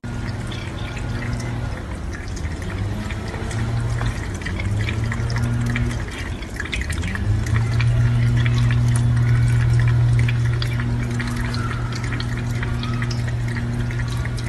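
Kitchen faucet running into a stainless steel sink, the water splattering and dripping, under a steady low hum that wavers in pitch a few seconds in and then holds.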